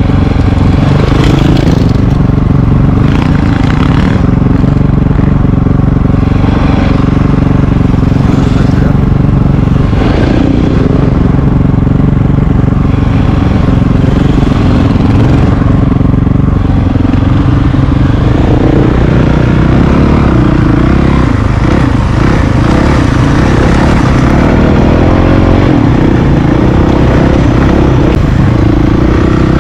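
Dual-sport motorcycle engines running, the camera rider's Honda CRF450RL single-cylinder four-stroke loudest. The engine note holds steady for the first half, then shifts and wavers in pitch from about two-thirds of the way through as the bikes move off along the dirt trail.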